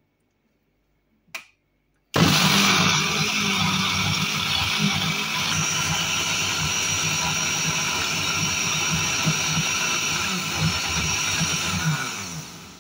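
A click, then a countertop blender motor starts abruptly and runs steadily at full speed, pureeing chunks of beetroot, carrot and apple in water into juice. Near the end it is switched off and spins down.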